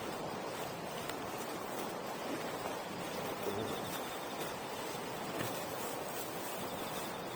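Campfire burning: a steady hiss with a few faint crackles.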